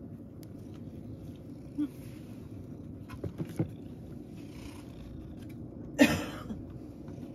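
Domestic cat purring, a low steady rumble, with a few light clicks about three and a half seconds in and a short, loud sound about six seconds in.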